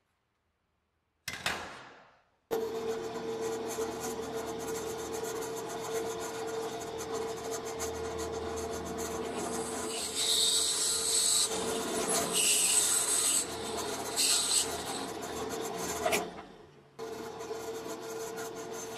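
Drill press running with a steady motor hum while its bit cuts into a small piece of metal square tube held by hand. Sharper, higher scraping comes in bursts about halfway through as the bit bites. A short knock comes just before the motor sound starts.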